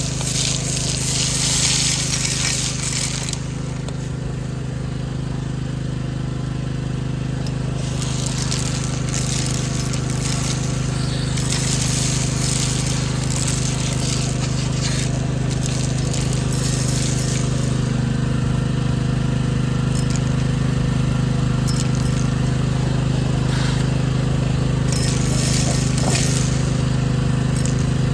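Vacuum cleaner motor running steadily with a constant hum, with several bursts of rattling hiss as debris is sucked up.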